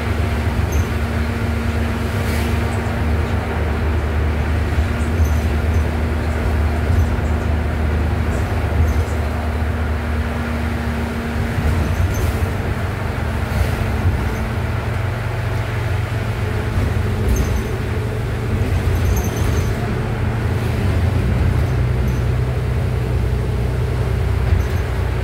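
Interior ride noise of a 2013 New Flyer XD40 diesel city bus: a steady low engine and drivetrain drone with road noise and faint light rattles. The engine's note shifts about halfway through.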